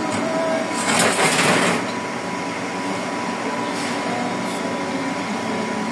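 Steady hum and rumble of running industrial machinery, with a brief, louder rush of noise about a second in.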